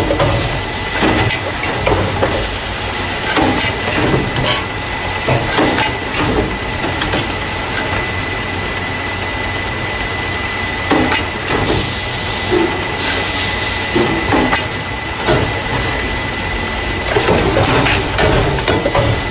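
Carton caser packing paper juice and milk cartons into plastic crates, running: irregular clatter and knocks over a steady high whine, with a stretch of hissing a little past the middle.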